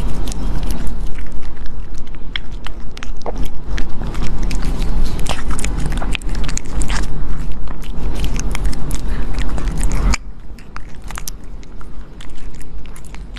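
A pet chewing and biting crunchy food close to the microphone, dense irregular crunches and clicks. A steady low hum beneath it stops abruptly about ten seconds in, and the chewing goes on more quietly after that.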